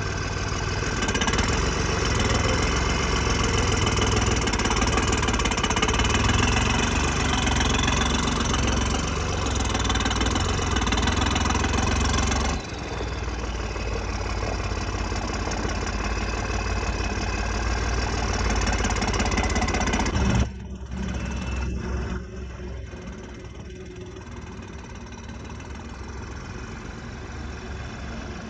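Tractor diesel engine running steadily as the tractor is driven. The sound changes abruptly twice, and is quieter after the second change, past the middle.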